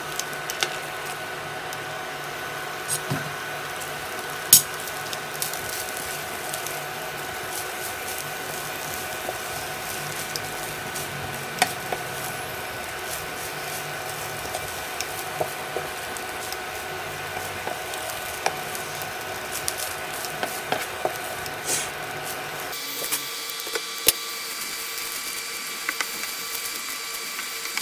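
A wooden spatula stirring and tossing cooked rice in a frying pan, with soft scrapes and scattered light taps against the pan, over a steady hum that changes in pitch about 23 seconds in.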